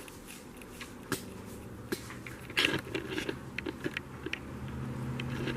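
Scattered small clicks and scrapes of handling noise, the loudest about two and a half seconds in, over a low steady hum that grows a little louder near the end.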